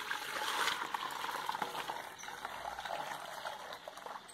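Heated liquid soap poured in a steady stream from a pot into a plastic basin, splashing and foaming as it lands. The pouring tapers off near the end.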